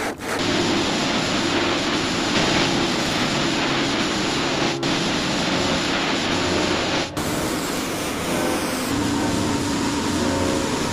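A loud, steady rushing noise with background music beneath it, broken by abrupt cuts about five and seven seconds in.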